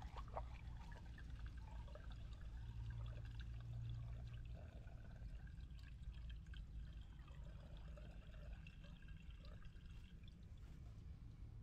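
Faint water pouring and trickling, with small irregular splashes over a steady low hum.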